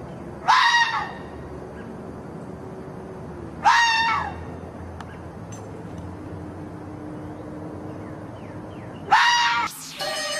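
Red fox screaming three times, each call a short, harsh cry that falls in pitch, a few seconds apart.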